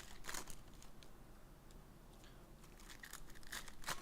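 Trading-card pack wrappers crinkling and crackling as packs are handled and ripped open, in short bursts, loudest just after the start and near the end.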